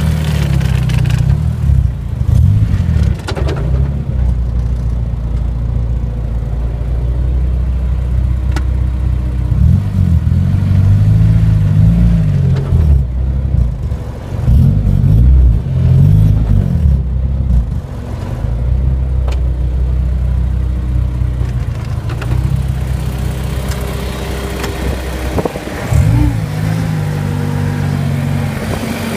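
Honda S2000 engine running and rising and falling in revs, with a few sharp clunks at scattered moments from its Ford 8.8 rear differential conversion, the clunking that is the problem on the original install.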